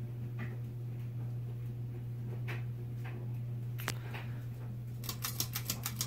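Sears/Lasko Turn of the Century ceiling fan running on low speed in reverse, its motor giving a steady low hum with a few faint ticks. About five seconds in comes a quick run of rattling clicks from the speed pull chain being handled.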